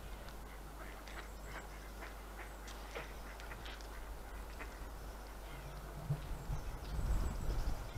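Canada geese and ducks on the water giving short, scattered calls. A low rumble comes in about six seconds in.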